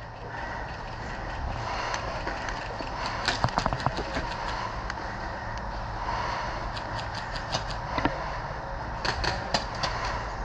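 Airsoft guns firing in short rapid bursts: three clusters of quick snapping shots, several per second, about a third of the way in, past the middle and near the end, over steady background noise.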